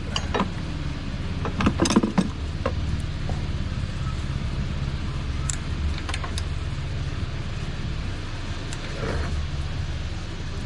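A small engine running steadily, with a cluster of metallic clinks and clatter from hand tools about two seconds in and a few lighter ticks later.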